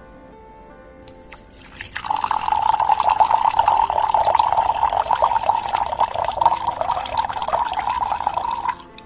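A drink poured steadily into a glass for about seven seconds, starting about two seconds in and stopping abruptly shortly before the end, over soft background music.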